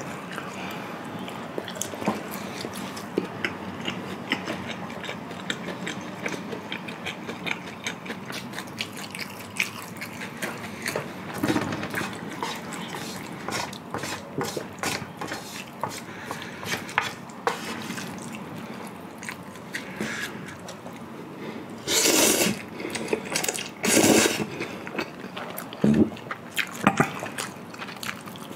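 Close-miked eating of Chapagetti black-bean noodles and sticky sweet-spicy fried chicken: steady wet chewing and mouth clicks, with two louder slurps near the end.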